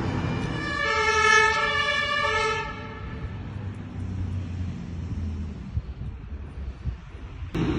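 A fire engine's two-tone siren sounds for about two seconds, switching between its two pitches, over the low rumble of a truck engine and street traffic.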